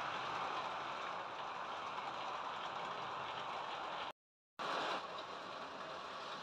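OO gauge model train of sand hopper wagons rolling along the track with a steady rattling rumble. The sound cuts out for about half a second just after four seconds in, then carries on.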